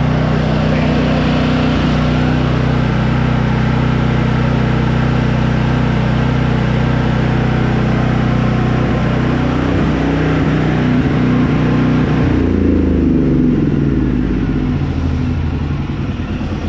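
Briggs & Stratton Elite 8000 portable generator running steadily under a light fan load, its output showing a distorted waveform that the owner blames on a faulty AVR. About twelve seconds in, the engine note drops and slides downward over a couple of seconds as it winds down.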